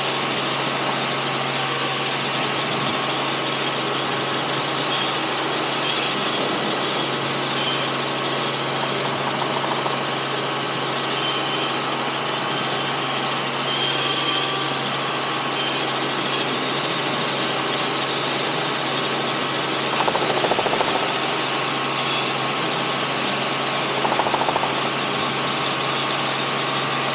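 Robinson R44 helicopter in flight, heard from the cabin: the steady drone of its Lycoming six-cylinder piston engine and rotor system, even in pitch and level throughout. It gets briefly louder twice, about 20 and 24 seconds in.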